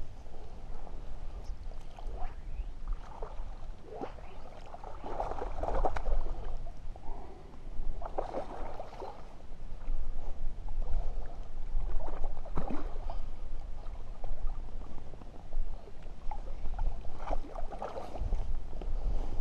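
Water splashing in irregular bursts as a hooked trout thrashes at the surface close to the bank and is drawn into a landing net, over a steady low wind rumble on the microphone.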